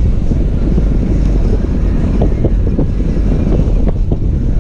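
Toyota FJ Cruiser driving over a snowy trail: a loud, steady low rumble of engine and tyres, with a few short knocks in the middle.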